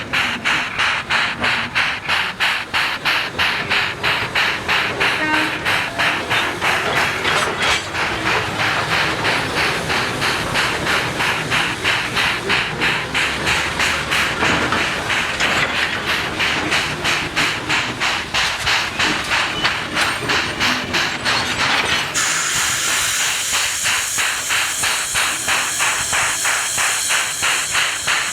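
JS-class 2-8-2 steam locomotive working, its exhaust beating in a fast, even rhythm of several chuffs a second. A hiss joins in near the end.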